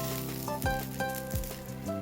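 Background music with a steady beat, a low drum stroke about every two-thirds of a second, over a faint sizzle of food cooking on the wood stove.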